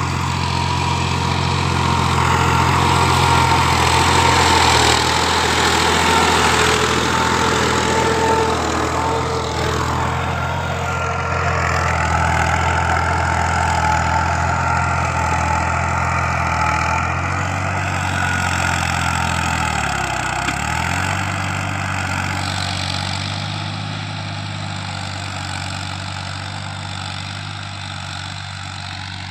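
Al-Ghazi tractor's diesel engine running steadily as it pulls a tine cultivator through dry soil. About two-thirds of the way in, its pitch dips briefly and then recovers. The sound fades gradually near the end as the tractor moves off.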